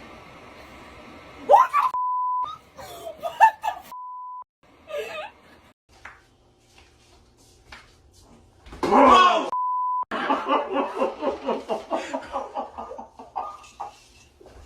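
Three short, steady censor bleeps, each about half a second, cut over swearing in a startled person's shouting. The loudest moment is a yell just before the third bleep, followed by laughing and chatter.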